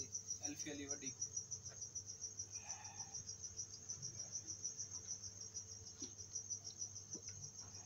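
A cricket chirping in a steady high-pitched pulsing trill, several pulses a second, over a faint low hum, with a few soft clicks.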